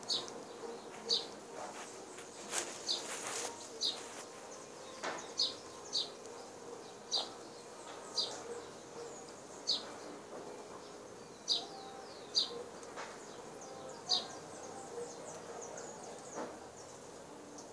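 A bird chirping: short, high, slightly falling calls about once a second, some coming in pairs, with a few sharp clicks between them.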